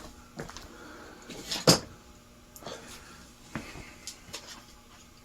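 A few scattered knocks and clicks of small objects being handled and set down, the loudest a sharp knock about a second and a half in.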